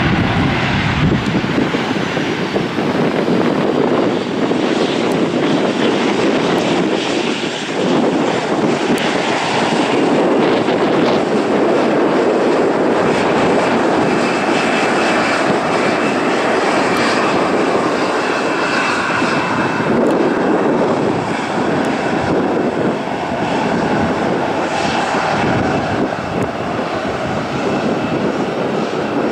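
Boeing 737-800's twin CFM56 turbofan engines running with a loud, steady roar as the airliner moves along the runway. A faint high whine comes through for a few seconds about halfway through.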